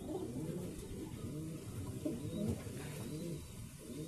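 Domestic pigeons cooing: a series of low, rising-and-falling coos, one after another, about one a second.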